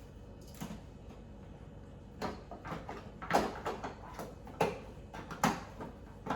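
Hard plastic clicks, knocks and sliding as the filled carbon filter box is pushed back into its slot in a Lomi countertop composter, in about eight separate strokes with short pauses between.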